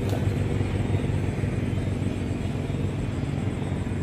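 Steady low rumble of a distant engine, with a brief click right at the start.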